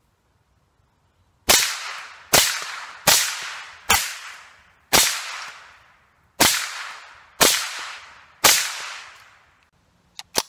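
A rifle fired eight times in fairly quick succession, each shot echoing for most of a second before the next. Two light clicks of the rifle's action come near the end.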